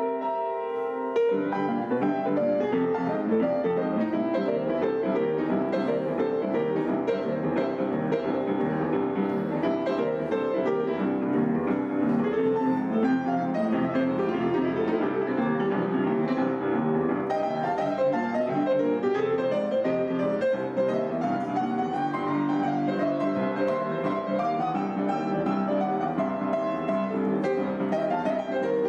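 Background piano music, a held chord for about the first second, then busier playing.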